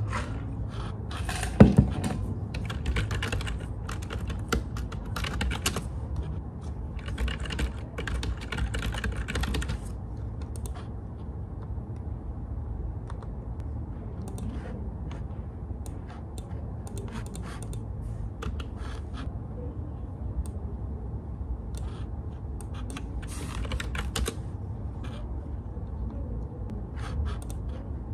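Typing on a computer keyboard: quick runs of keystrokes through the first ten seconds, then sparser, scattered keypresses. A single sharp knock about a second and a half in is the loudest sound, over a steady low hum.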